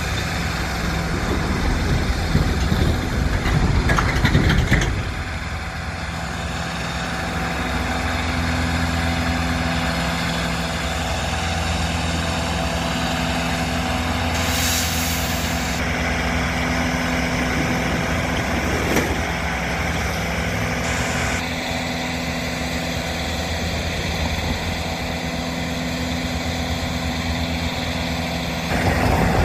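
Diesel engines of rail maintenance-of-way machines running with a steady hum. The sound gets louder and rougher about three to five seconds in, and there is a brief hiss about halfway through.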